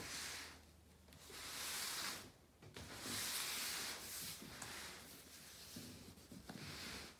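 Old cardboard box scraping and sliding across a marble tabletop as it is turned by hand, in a few drawn-out rasping strokes.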